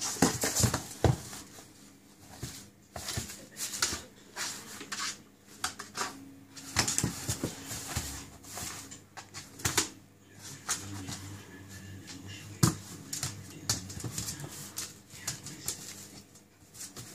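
Staffordshire bull terrier puppy chasing its tail: irregular clicks and scuffs of its claws on a wooden floor, mixed with the rustle of a puppy training pad being scrambled over.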